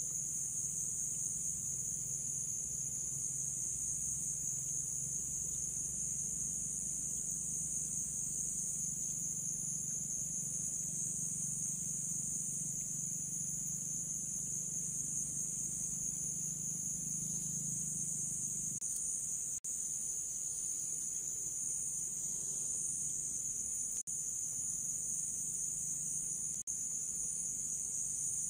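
Steady, high-pitched chorus of insects chirring without a break, with a low hum underneath that stops about two-thirds of the way through.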